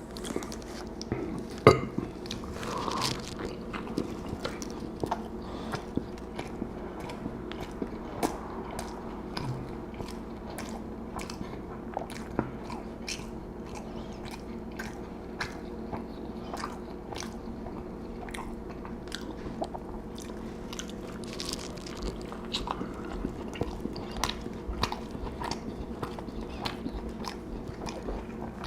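Close-miked chewing and biting of a fast-food meal of Whopper burger and fries: a steady run of short crunches and wet mouth clicks, over a faint steady hum.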